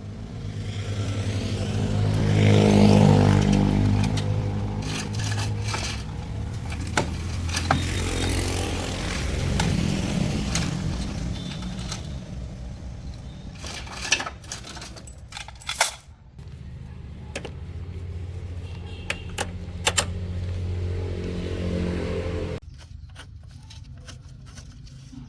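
An engine running, revving up briefly about two seconds in, then running steadily with a few sharp metallic clicks, and cutting out suddenly near the end.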